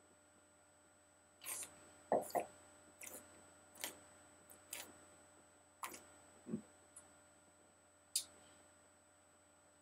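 Wine being sipped and worked around the mouth during a tasting, heard as about ten short, wet slurping and swishing sounds spread over several seconds.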